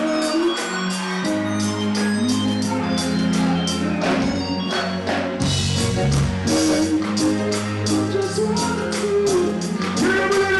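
Live reggae band playing an instrumental passage: electric bass line, keyboards and guitar over a steady drum beat with even, ticking cymbal strokes.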